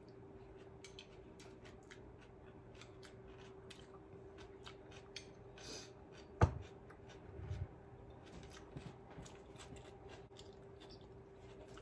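Close-miked eating: a run of small mouth clicks and smacks while chewing rice and coleslaw. About six and a half seconds in, a glass bowl is set down on a wooden board with a sharp knock. A steady low hum runs underneath.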